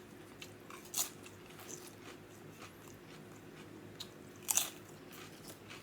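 Mouth sounds of someone eating an Italian hoagie: scattered chewing and crunchy bites, the loudest about four and a half seconds in.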